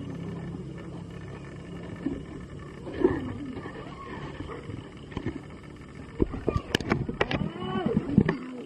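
Puppies growling and yelping as they wrestle: a short growl about three seconds in, then a rapid run of growls and yelps over the last two and a half seconds.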